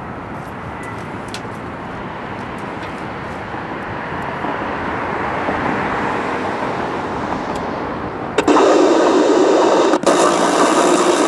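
A steady rushing hiss that slowly grows louder. About eight seconds in, loud playback from the Realistic SCR-3 radio-cassette boombox's speakers comes on abruptly and drops out for an instant about a second and a half later.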